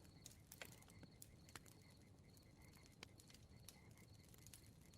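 Bonfire crackling faintly, with scattered small pops and snaps at irregular moments.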